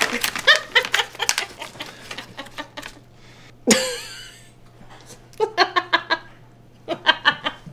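Hearty mocking laughter in quick repeated ha-ha pulses, with a loud whooping cry about three and a half seconds in and further rhythmic bursts of laughter near the end.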